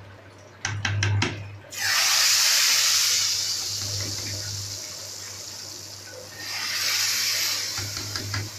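Hot tadka (tempering oil with whole red chillies and spices) hitting a pot of moong masoor dal and sizzling. A few sharp metal clicks come first. The sizzle starts suddenly about two seconds in and slowly dies down, then surges again near the end as more of the oil is scraped in.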